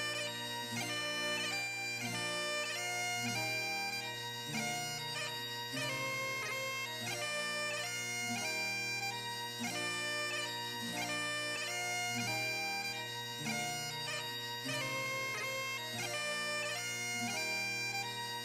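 Instrumental background music: a reedy wind-instrument melody of held notes over a steady low drone.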